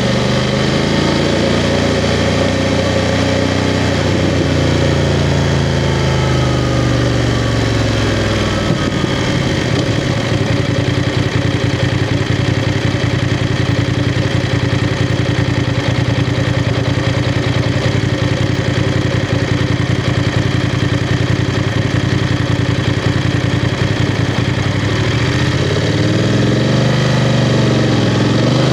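BMW F 750 GS's parallel-twin engine heard from the rider's seat. The revs rise and then fall off in the first few seconds, the engine runs steadily at low revs through the middle, and it picks up again near the end.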